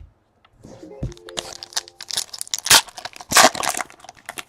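Foil trading-card pack wrapper being torn open and crinkled, a run of sharp crackles.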